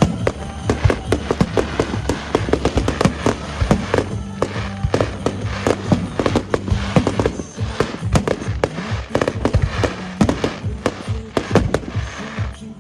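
Aerial fireworks exploding in a dense, irregular barrage of sharp bangs, with music playing underneath.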